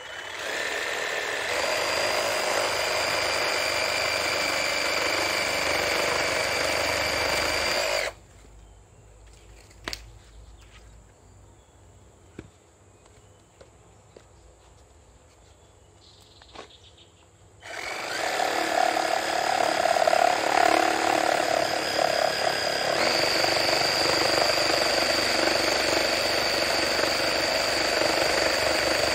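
Bull BL 523 cordless reciprocating saw cutting through rubber-tree branches, running steadily with a high whine for about eight seconds. It stops while the branch is shifted by hand, with a few knocks, then starts again about two-thirds of the way in and cuts until the end.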